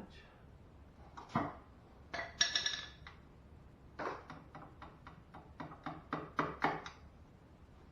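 Light metal-on-metal hammer taps driving a cotter pin through a castle nut on an ATV tie rod end. There is a single tap, then a ringing clink, then a quick run of about nine taps near the end.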